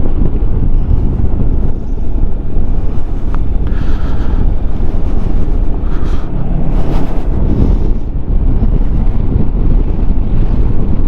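Steady rush of wind buffeting the microphone of a moving motor scooter, with engine and road noise underneath.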